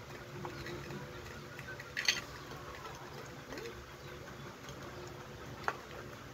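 A dog eating from a metal bowl: small scattered clicks and taps, with a brief cluster of sharper clinks about two seconds in and a single sharp clink near the end, over a steady low hum.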